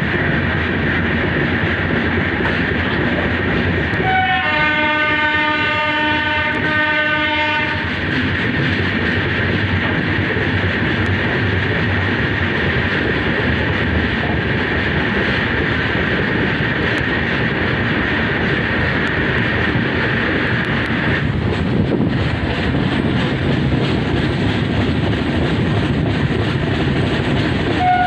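Passenger train running, heard from an open coach doorway: a steady rumble and rattle of wheels on the rails. About four seconds in, a train horn sounds one long blast of some four seconds, and another horn blast begins right at the end.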